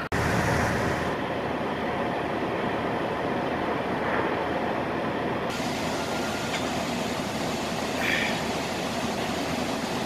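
Steady rumble and road noise of a semi truck moving slowly, heard from inside the cab.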